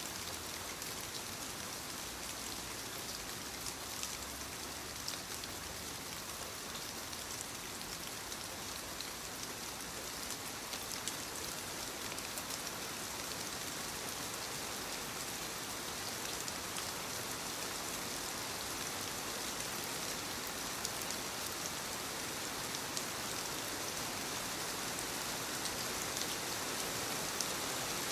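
Steady light rain falling on leaves, a continuous patter with many small drop ticks, growing slightly louder toward the end.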